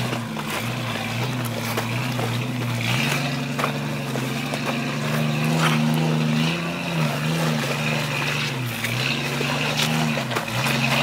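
Jeep Cherokee's engine pulling under throttle as it crawls up a steep, rocky trail. Its pitch rises about three seconds in, then dips and climbs again several times as the throttle is worked. Short clicks and knocks from the tyres on loose rock come through now and then.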